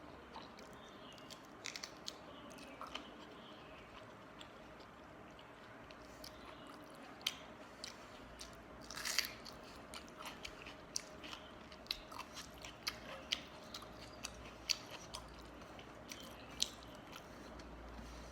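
Close mouth sounds of a person eating panta bhat (rice soaked in water) with mashed potato and fish curry: wet chewing with many short clicks and smacks. The clicks are sparse at first and come thick and fast from the middle on.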